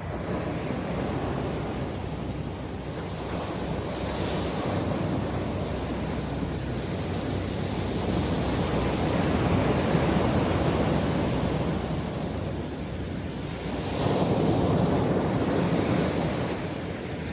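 Sea waves breaking on the shore, swelling every few seconds, with wind buffeting the microphone.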